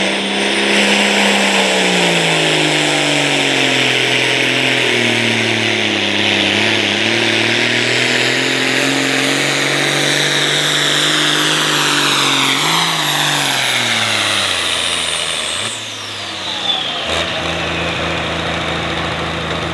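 Turbocharged diesel engine of a John Deere pulling tractor running at full power under the sled's load, its pitch sagging slowly as the pull goes on, with a high turbo whine above it. About fifteen seconds in the throttle is cut: the engine drops to a steady idle and the turbo whine winds down.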